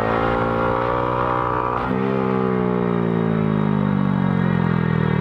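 Honda Grom's single-cylinder engine running under throttle, its pitch slowly falling. About two seconds in it is revved up sharply, then it sinks slowly again.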